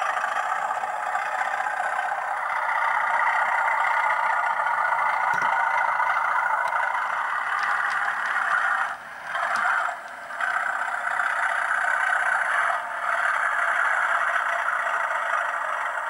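Hornby Class 97/3 (Class 37) model locomotive's TTS sound decoder playing its diesel engine sound through the model's small speaker: a steady, thin running note, together with the model's wheels and mechanism. The sound drops out briefly twice a little past halfway, and dips once more a few seconds later.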